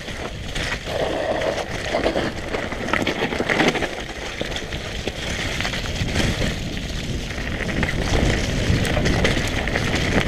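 Mountain bike ridden fast over a muddy trail: tyre noise with chain and frame rattle.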